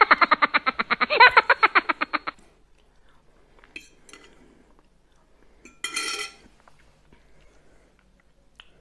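A woman's quick pulsed laughter for the first two seconds, then small mouth sounds of eating and a metal spoon clinking once against a ceramic bowl about six seconds in, ringing briefly.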